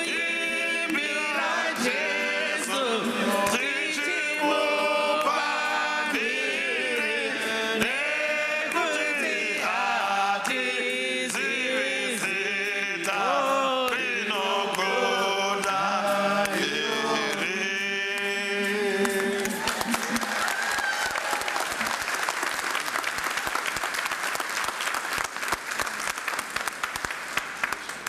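A small group of voices sings a worship song together, with one lead voice. About two-thirds of the way through the singing ends, and the audience applauds until the applause stops sharply at the end.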